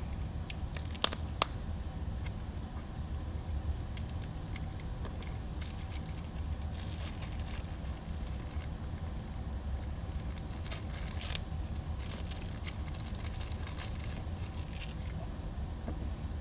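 Clear plastic zip bag crinkling and rustling as a small drone motor is unpacked from it, with scattered clicks and two sharper ones a little over a second in. A steady low hum runs underneath.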